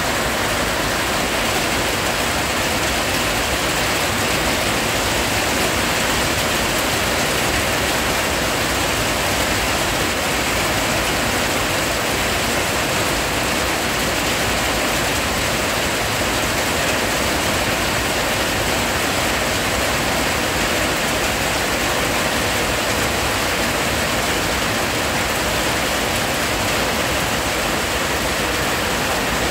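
Loud, steady rain falling in a heavy downpour: an even hiss of drops that does not let up.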